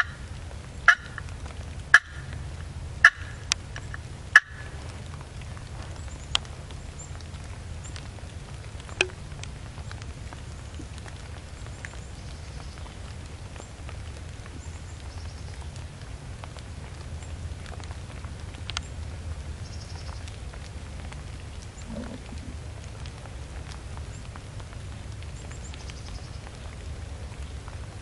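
Turkey calling: a run of short, sharp notes about a second apart in the first few seconds, then two more spread out, over a steady low rumble.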